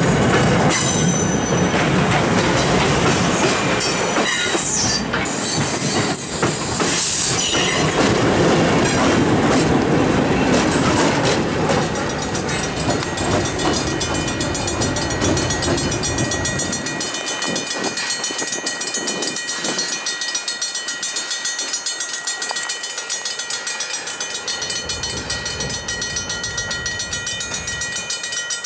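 Passenger coaches rolling past close by, wheels clattering over the rails, then a Morristown & Erie ALCo diesel locomotive on the end of the train passes and the train's sound fades after about 17 seconds as it pulls away. A grade-crossing bell rings steadily through the second half.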